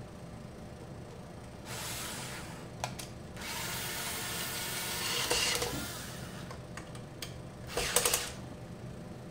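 Black+Decker cordless drill/driver running in two spells, a short one and then a longer one of about three seconds, driving screws into a sheet-metal chassis. There are a few sharp clicks between the runs and a brief loud rattle near the end.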